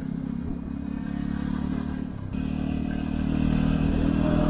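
Motorcycle engine running at a steady speed while riding, its pitch holding level.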